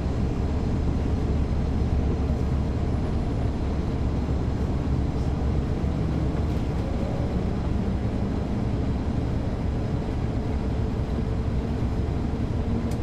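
Caterpillar C13 diesel engine of a 2009 NABI 40-SFW transit bus, heard from the rear seat inside the bus, running steadily with a deep rumble. A faint whine rises slightly in pitch midway.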